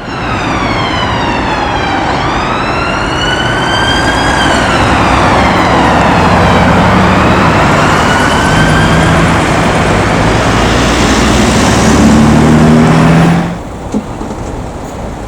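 Emergency vehicle siren wailing, its pitch sliding slowly down and up every four to five seconds, over loud traffic and engine noise. It cuts off suddenly near the end.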